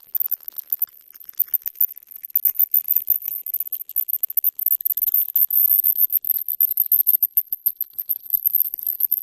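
Crackling radio static: irregular clicks over a steady high-pitched whine, growing denser and louder after about two seconds, with no engine or wind sound beneath.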